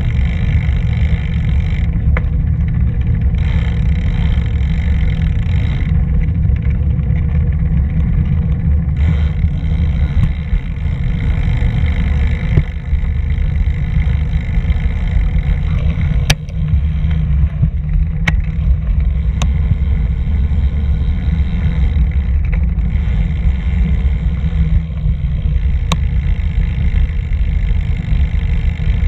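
Steady wind rumble buffeting the microphone of a camera moving along a path, with a few sharp clicks in the second half.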